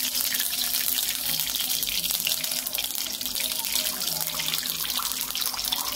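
Melted ghee poured in a thin, steady stream from a pouch into a cheenachatti (a deep kadai), making a steady hiss as it bubbles and foams in the pan.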